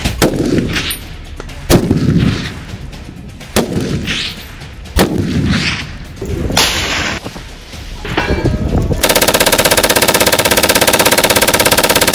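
Rifle shots fired one at a time, about five spread over the first eight seconds, each with a booming tail. Then, for the last three seconds, a continuous rapid burst of automatic fire from a belt-fed light machine gun.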